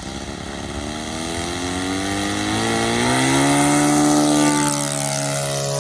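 O.S. Gemini 160 twin-cylinder four-stroke engine on a model airplane running hard as the plane rolls along the runway toward and past the listener. It grows louder and rises in pitch, then drops in pitch near the end as it goes by.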